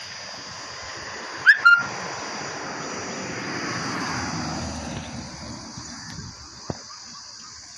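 Roadside ambience: a steady high insect drone, a short two-part whistle about one and a half seconds in that rises and then holds its note, and a vehicle passing along the road, loudest around four seconds in.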